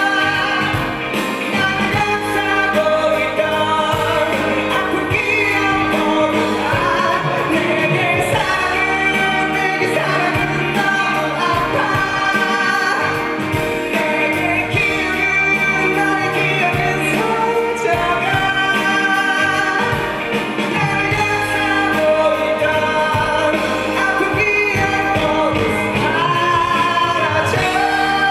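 Male vocalist singing a song live with band accompaniment, a keyboard among the instruments.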